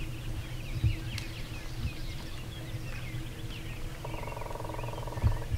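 A dawn chorus of songbirds chirping, with a wild turkey gobbling once, a rapid rattling call about a second long, a little after halfway through. A few low thuds sound underneath.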